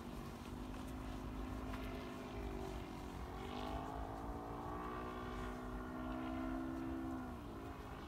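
Seagull Extra 300 radio-controlled aerobatic model plane flying, its engine and propeller buzzing steadily. The pitch dips about two and a half seconds in, climbs again and holds, then drops near the end.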